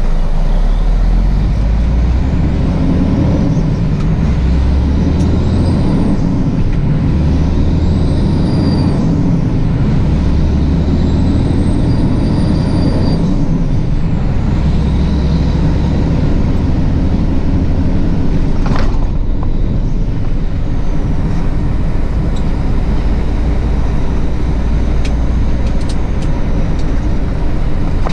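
Diesel semi-truck engine and cab noise heard from inside the cab as the truck pulls away and drives on. The low engine drone changes several times in the first half as it goes up through the gears, with faint high whines rising and falling in pitch.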